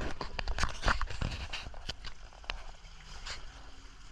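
A string of irregular knocks and clicks, close together for the first two seconds, then fewer and softer.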